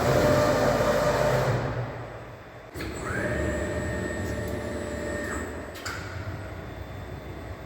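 Safan E-brake servo-electric press brake running. It opens with a loud rush of noise, then about three seconds in a steady high whine from the drive ramps up and holds, dropping away near six seconds.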